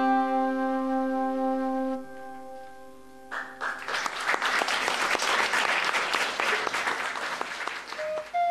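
A folk tune ends on a held, ringing chord that stops about two seconds in. Audience applause follows for about four seconds, and near the end a high woodwind note starts the next tune.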